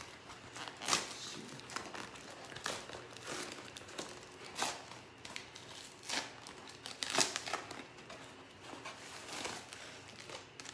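A shipping envelope being torn open and handled by hand: crinkling and tearing with sharp crackles at irregular moments, the loudest about a second in and again about seven seconds in.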